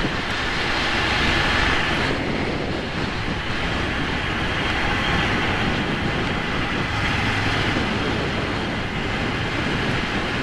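Ducati Monster 797's air-cooled L-twin engine running at a steady cruise, largely buried under a constant rush of wind over the microphone.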